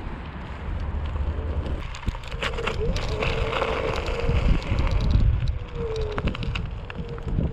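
Xiaomi Mi Electric Scooter 3 climbing a steep hill: its hub motor whines under load from about two seconds in, over tyre rumble and rattling clicks on rough pavement, with wind on the microphone.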